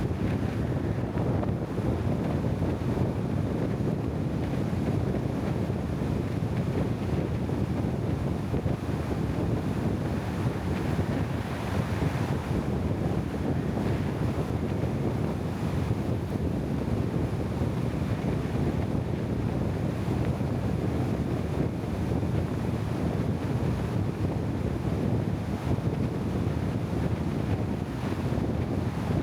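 Steady low rushing noise with no distinct events: wind buffeting the microphone.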